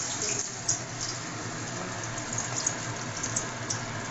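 A lentil-batter pakora deep-frying in hot mustard oil in a wok: a steady sizzle with scattered small sharp pops.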